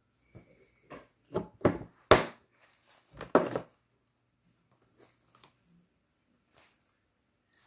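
Marker pens being handled on a tabletop: several sharp clicks and knocks in quick succession as pens are picked up, uncapped and set down, the loudest about two seconds in. After that there are only a few faint ticks.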